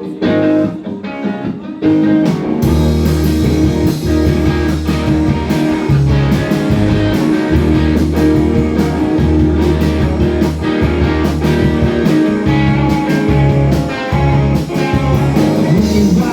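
Live band playing a blues-rock instrumental: guitar alone at first, then bass and drums come in about two and a half seconds in and carry a steady beat.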